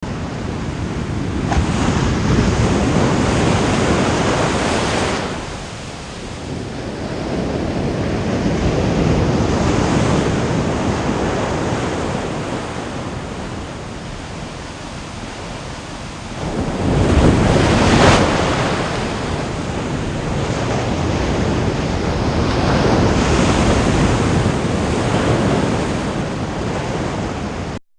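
Ocean waves breaking on a shoreline: a continuous wash of surf that swells and recedes every several seconds, the largest wave surging about two-thirds of the way in.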